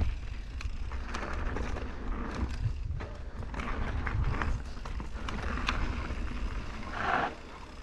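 Mountain bike ridden fast over a dirt trail: tyres on loose dirt and the bike clattering and rattling over bumps, with a steady low rumble of wind on the handlebar-mounted microphone.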